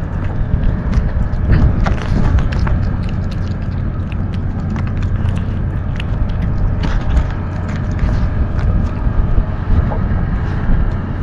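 Kitten chewing and crunching dry kibble close to the microphone, with irregular sharp crunches, over a steady low rumble.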